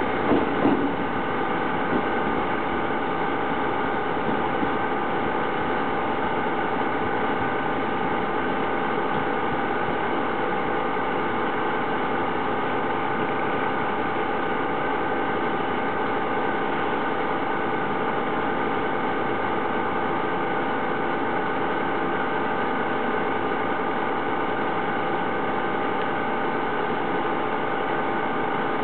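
Steady machine hum holding several even tones throughout, with the last noise of a passing train dying away in the first second.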